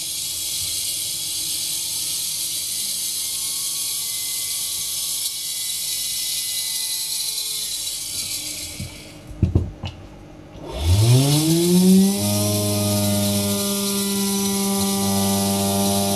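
Rewound blender motor (a brushed universal motor) running on 12 V DC from a bench supply, with a steady whine and brush hiss. The maker calls it inefficient because its rotor and stator windings are unbalanced. About eight seconds in it stops, there are a few clicks, and then it spins back up with a quickly rising whine and runs steadily at a higher pitch.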